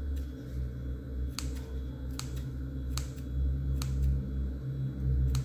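Scissors snipping small cuts into the edge of a marshmallow: five sharp clicks of the closing blades at a steady pace, about one a second, over a low steady hum.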